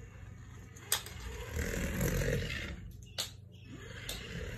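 A cat purring as it is rubbed, with a rough pulsing rise about halfway through, plus rustling and a few light clicks of handling.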